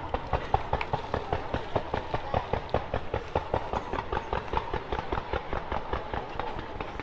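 Fireworks display firing a rapid, even run of pops, about four a second, as a barrage of aerial shots goes up.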